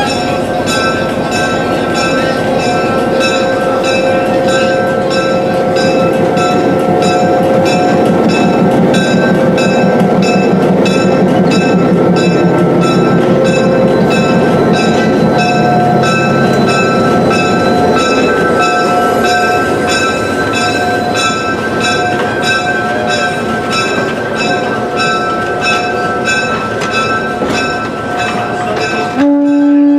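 A train running by, its rumble swelling and then easing, with a bell ringing at an even beat of about two strokes a second over steady ringing tones.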